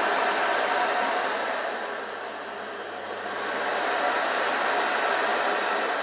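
Agaro Twister 2200 W canister vacuum cleaner running, a steady airy whoosh of motor and suction, its speed dial just turned up. The sound dips quieter about two seconds in and comes back up about four seconds in.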